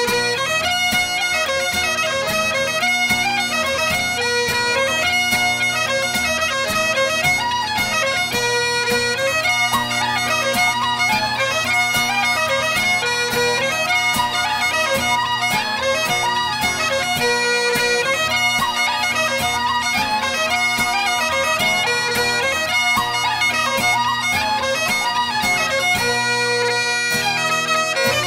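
Background music: a bagpipe tune, a quick, ornamented melody over steady drones.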